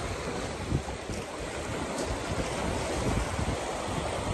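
Small lake waves washing and breaking on a rocky shore, with gusty wind rumbling on the microphone.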